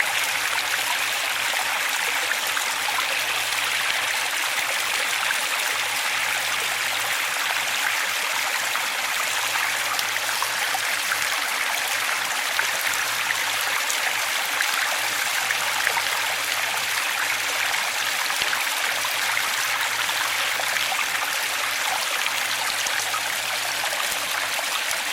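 Running water of a stream, a steady, even rushing with no breaks or changes.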